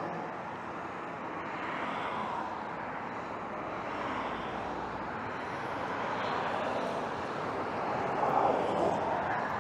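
Road traffic: cars driving past on the road, a steady noise that swells as each one goes by, loudest as a car passes near the end.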